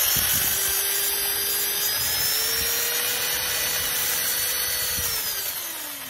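Traxxas Slash RC truck's electric motor and drivetrain whining as its wheels spin freely off the ground. The pitch creeps up over the first couple of seconds, holds steady, then falls as it winds down near the end.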